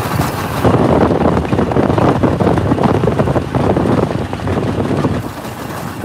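Wind buffeting the microphone over the running motorcycle engine and road noise of a moving tricycle (motorcycle with sidecar). The wind rumble is loudest from about half a second in until near the end.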